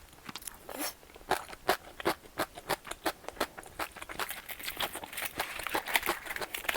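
Close-miked eating sounds of someone chewing tteokbokki (spicy rice cakes): a quick, irregular run of sharp mouth clicks and smacks, a few a second.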